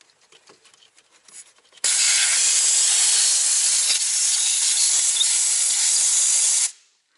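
Compressed air hissing loudly from a truck's pressurised air line at the fan solenoid's push-to-connect fitting as the hose is pulled. It starts suddenly about two seconds in and cuts off sharply near the end when the line is sealed.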